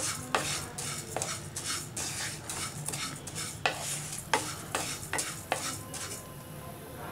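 Wooden spatula stirring fennel and ajwain seeds as they roast in a pan: a run of irregular scraping strokes with the seeds rattling across the pan, the fennel nearly done. The strokes thin out near the end.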